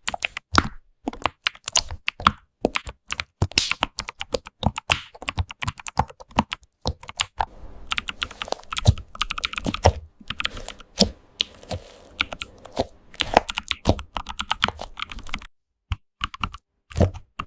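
Computer keyboard typing: a rapid, irregular run of key clicks that stops for about a second near the end, then starts again.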